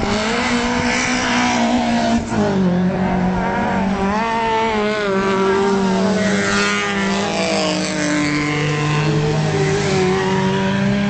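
Engines of racing saloon cars on a dirt track running at high revs. Their pitch keeps rising and falling as the cars accelerate, lift off and shift gears, and more than one engine is heard at once.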